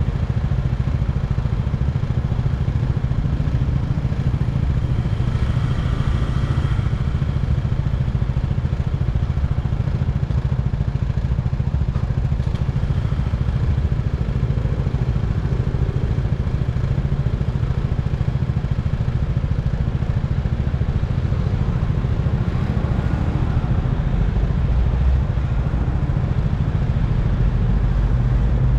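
Motorbike running steadily along the road: a constant low drone of engine and riding noise.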